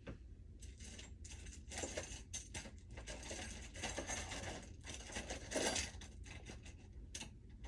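Small metal jewelry clinking and rattling in quick, irregular clicks as it is rummaged through by hand.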